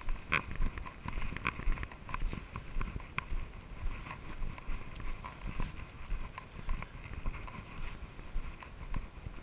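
Mountain bike rolling along a dirt singletrack: a steady low rumble of tyres and wind, with irregular clicks and rattles from the bike as it goes over bumps.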